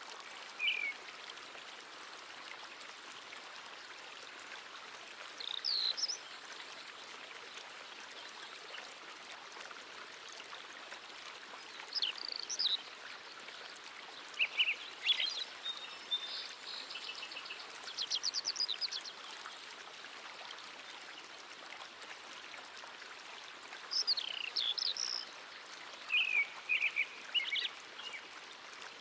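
Steady rush of a flowing stream with birds calling every few seconds in short chirps and trills. A high, thin buzz above it comes and goes.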